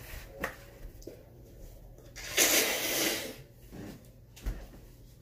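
A person blowing their nose into a tissue: one hard, noisy blow lasting about a second, preceded by a few faint rustles of the tissue.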